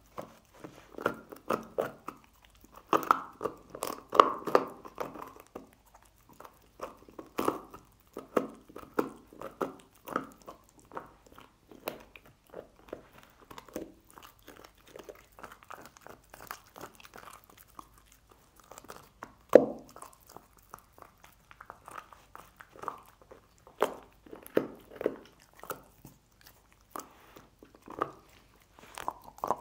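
A dog gnawing and crunching on a pork bone: irregular bouts of chewing and bone crunches, with one sharp crack about twenty seconds in.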